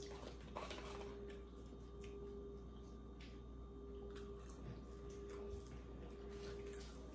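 Faint chewing and crunching of crispy fried chicken, with a few soft clicks, over a steady faint hum.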